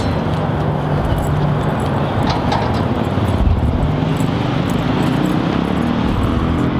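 Steady rumble of road traffic from a nearby city street, with a faint hum that shifts in pitch about halfway through, like a passing vehicle.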